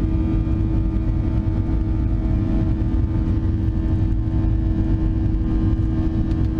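Boeing 737-700's CFM56-7B turbofan engines at takeoff thrust, heard from inside the cabin over the wing during the takeoff roll: a loud, steady drone with a deep rumble under a constant hum.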